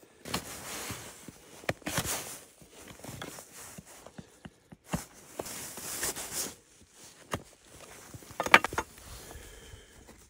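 Gloved hands working peeled wooden poles and cord lashings on snow: bursts of rustling and scraping with scattered knocks, and a short rattle of sharp knocks near the end that is the loudest sound.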